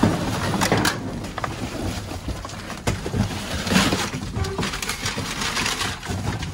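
Cardboard boxes and packing paper rustling, crunching and knocking irregularly as they are dug through and trodden on.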